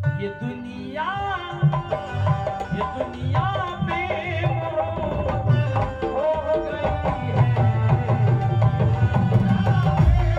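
Instrumental interlude of live ghazal accompaniment: a hand-drum rhythm with deep bass strokes under a melody line that slides and bends through ornamented phrases.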